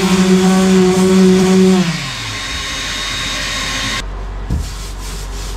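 Electric sander with 80-grit paper, hooked to a vacuum, running steadily as it sands down a fiberglass tub repair, then switched off about two seconds in, its pitch falling as it winds down. The vacuum's rushing hiss carries on and cuts off abruptly near the end, leaving a low hum and a single thump.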